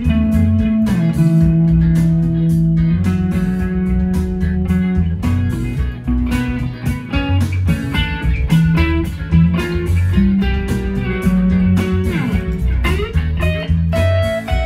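Fender Stratocaster electric guitar playing an improvised Mixolydian lead, with long held notes, string bends and slides. It plays over a backing track with a steady drum beat and bass.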